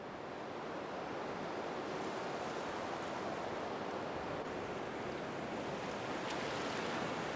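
Steady rushing noise that swells over the first two seconds and then holds evenly, with a few faint ticks near the end.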